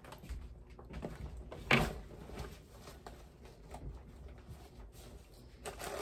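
Handling and rustling of bags and small belongings while tidying, with scattered light knocks. A sharp knock just under two seconds in is the loudest sound, and a run of quick clicks begins near the end.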